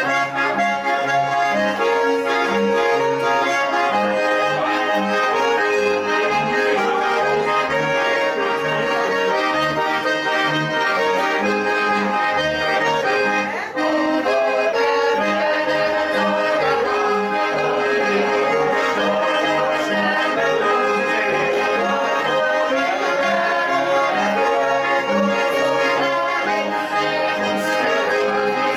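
Swiss Ländler folk music played live on Schwyzerörgeli (Swiss diatonic button accordions) with double bass: accordion chords and a lively melody over a steady oom-pah bass line.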